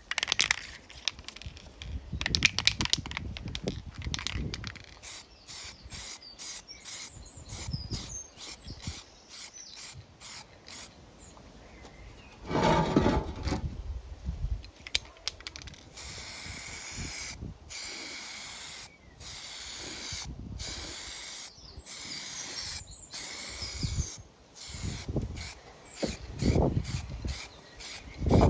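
Primer being sprayed from an aerosol can in repeated hissing bursts of a second or two, with short pauses between passes, in the second half. Before that comes a run of rapid clicks and rattles, with a louder handling noise about halfway.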